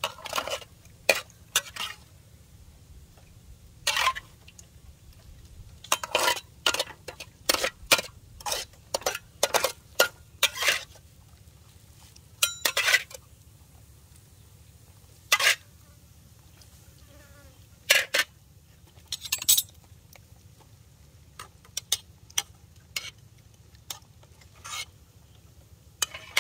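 Metal ladle and spoon scraping and clinking against an aluminium pot and a wok as stir-fried food is scooped and stirred. The sound is a long run of sharp clinks and scrapes, a few of them ringing, bunched in the first half and sparser after.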